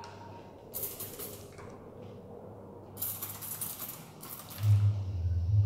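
A hand trigger spray bottle squirting water onto hair: three short hissing sprays with the trigger clicking. A low rumble comes in near the end.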